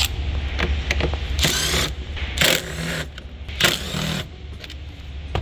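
Small power tool whirring in three short bursts, backing out the 8 mm bolts that hold the engine cover, with a sharp click near the end.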